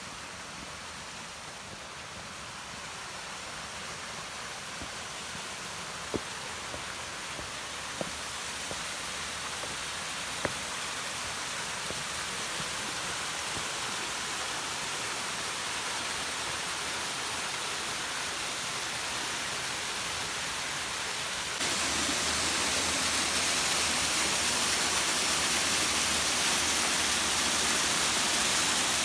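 Waterfall rushing, a steady roar of falling water that grows slowly louder and jumps louder about three-quarters of the way in. A few faint short clicks sound in the first half.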